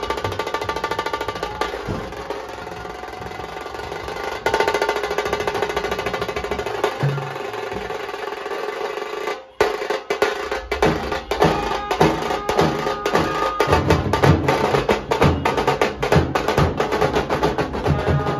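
Nashik dhol drumming: large barrel dhols beaten with sticks under a fast, rattling drum roll. About halfway the drumming breaks off for a moment, then comes back in louder with dense, heavy strokes.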